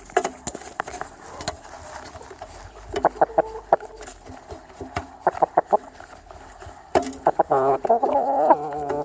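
Chickens pecking at feed with sharp taps and clucking in short runs, the longest run from about seven seconds in to the end.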